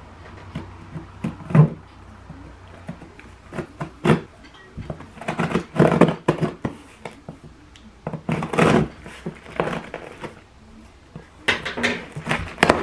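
Kitchen scissors cutting the packing tape on a cardboard shipping box, with irregular scrapes, rustles and knocks as the cardboard is handled and pulled open.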